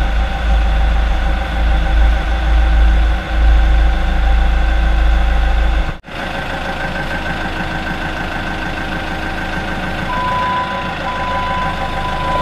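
Diesel engine of heavy equipment running steadily, with a heavy low rumble that cuts off abruptly about halfway through; the engine tones carry on more quietly after that. About ten seconds in, a back-up alarm starts beeping in long pulses.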